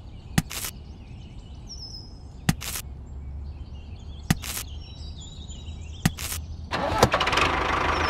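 Four short sharp clicks, each followed by a brief rustle, about two seconds apart. About seven seconds in, a tractor engine starts and runs at a rapid, knocking idle.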